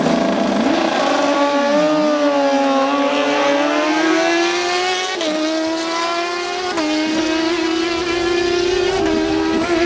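Two superbikes, one a BMW S1000RR, accelerating hard at full throttle on a drag run. The engine note climbs in pitch and dips briefly at each upshift, several times through the second half.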